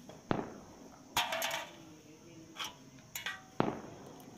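Five or six sharp metal clinks, each with a short ring, spread over a few seconds: a steel hand tool knocking against the cam sprocket and chain inside the open cylinder head of a small single-cylinder motorcycle engine.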